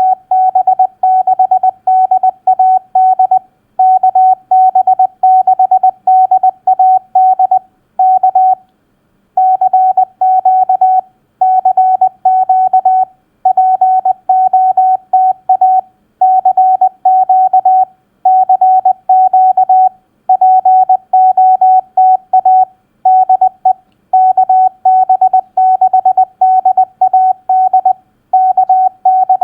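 Morse code sent at 20 words per minute: a single clean, steady tone keyed on and off in dots and dashes, spelling out a Parks on the Air activator's CQ call. The characters come in groups separated by short gaps, with one longer pause about nine seconds in.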